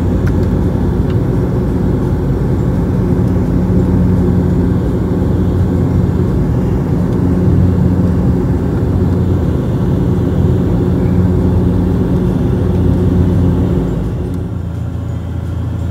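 Inside the cabin of a high-wing turboprop airliner in flight: a steady, loud propeller and engine drone over rushing air noise. Near the end the drone changes to a slightly quieter, lower hum.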